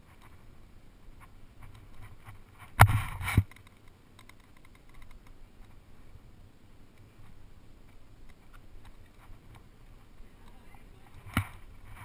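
Climbing gear and movement on rock, picked up close by a helmet camera: faint scattered clicks and scrapes. One loud knock and rustle comes about three seconds in, and a sharp click comes near the end.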